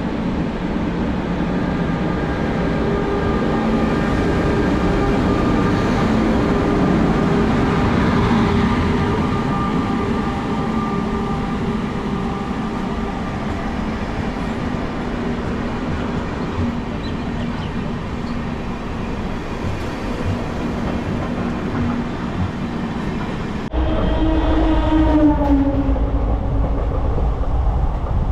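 An electric locomotive and its express coaches passing close on the adjacent track: a steady rumble of wheels on rail with a held motor hum. About 24 seconds in, the sound cuts to the louder, deeper rumble heard inside a passenger coach, with a tone sliding down in pitch.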